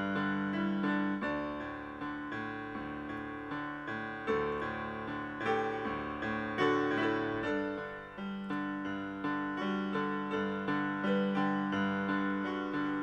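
Solo piano music, notes struck one after another and left to fade.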